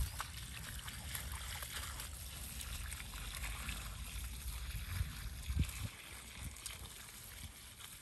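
Water trickling from a plastic watering can onto the soil around bean plants, with a low rumble underneath.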